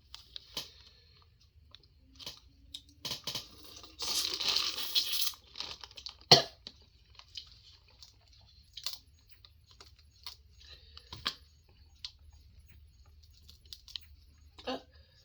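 Close-up eating sounds: a burst of crunching about four seconds in, with chewing and sharp mouth clicks and smacks spread through the rest, one of them loud about six seconds in.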